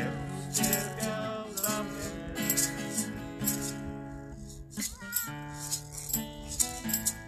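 Acoustic guitar strummed in chords, with a pair of maracas shaken along in rhythm.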